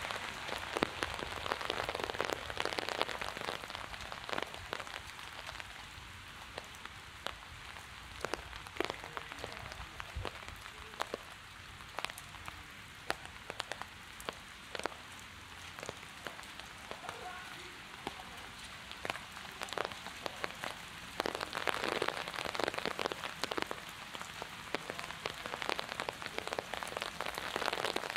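Heavy rain falling and pattering on hard surfaces, with many single drops ticking close by. The patter is thicker near the start and again from about three quarters of the way through.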